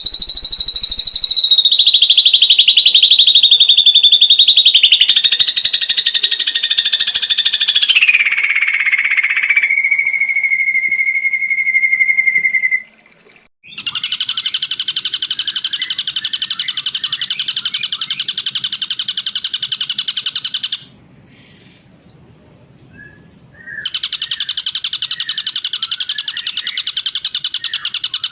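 Ashy drongo singing in long, rapid trills. The first trill runs for about thirteen seconds and slides steadily down in pitch. After a short break come two more fast, even trills, separated by a pause of a few seconds.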